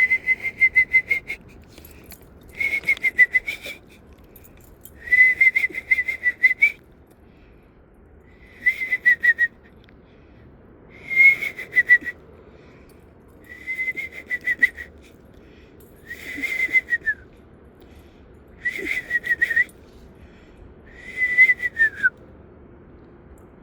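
Imitation owl call: a high whistle that trills quickly, given in nine bouts about two and a half seconds apart, each around a second long, several ending in a short downward slide.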